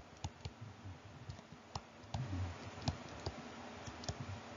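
Faint, irregular clicks and taps of a stylus on a tablet as words are handwritten.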